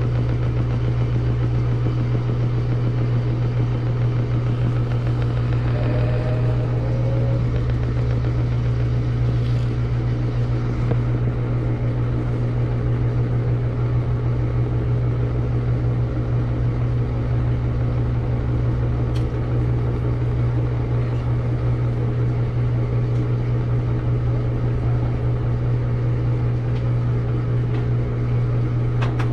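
Samsung washing machine running, with a steady, unbroken motor hum.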